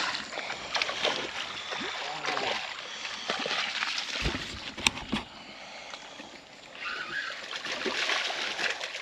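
Water splashing and sloshing against shoreline rocks, with scattered small clicks and a heavier thump about five seconds in.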